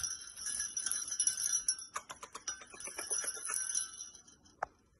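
Small jingle bell on a red ribbon toy jingling as it is shaken, a high ringing with quick little clicks, dying away near the end.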